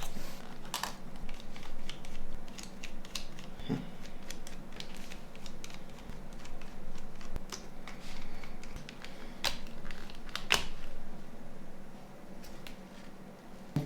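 Small plastic parts of a Nokia 9210 phone's body shell being handled and worked loose: scattered light clicks and scrapes, with a few sharper snaps about a second in and again near the ten-second mark.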